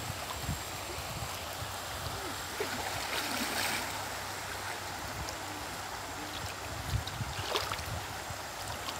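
Shallow river water sloshing and splashing around the legs of people wading through it, over a steady rush of flowing water, with a few louder splashes about a third of the way in and again near the end.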